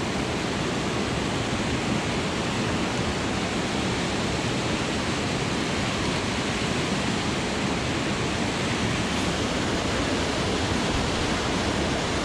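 Rushing mountain-creek water, a steady, loud rush with no breaks.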